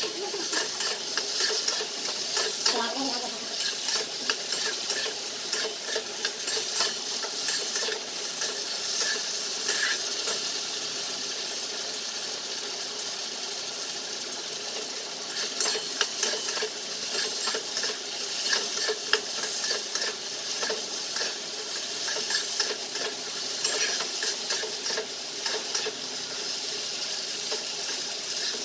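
Egg-and-cornflour-coated chicken pieces deep-frying in hot oil, a steady sizzle. Frequent light clicks of a metal utensil stirring against the pan run through it.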